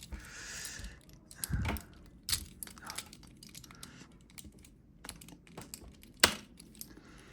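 Small plastic-and-metal clicks and scrapes as batteries are worked out of a toy's battery compartment, with a brief rustle at first and one sharp click about six seconds in.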